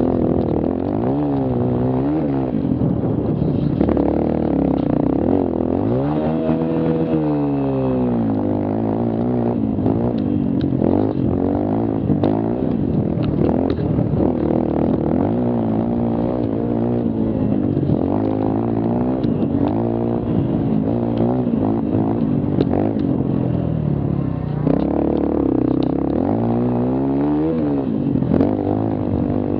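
Mini quad's small engine running hard along a dirt trail, its pitch repeatedly rising and dropping with the throttle, with scattered knocks and rattles from the ride over rough ground.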